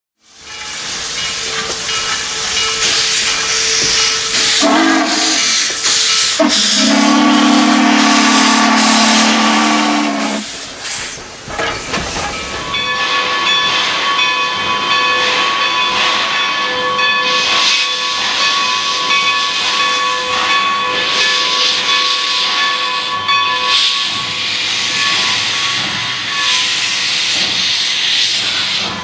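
Steam locomotive whistle blowing twice, a short blast then a longer one of about four seconds, followed by a loud steady hiss of steam venting around the locomotives.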